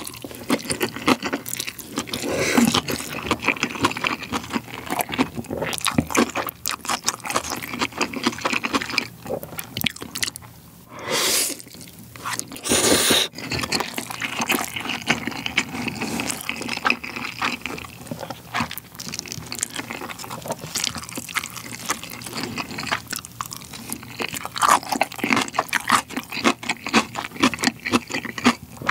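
Close-miked eating of Chapagetti black-bean noodles and spicy kimchi: slurping, wet chewing and crunching mouth sounds. Two loud breathy rushes of air about eleven and thirteen seconds in, as the eater blows out against the spice.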